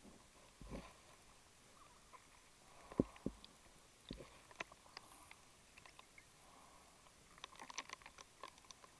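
Faint, scattered clicks and knocks from diving gear, heard underwater, with a few dull thumps in the first half and a quick run of clicks near the end.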